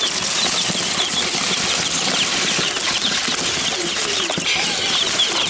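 A brood of Wyandotte bantam chicks peeping nonstop, many short high peeps a second, over a steady rustling of straw and cardboard as they are tipped out of their box.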